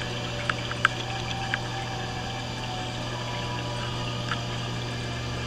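Aquarium water circulation: a steady pump hum under running, trickling water, with a few short high blips from the water.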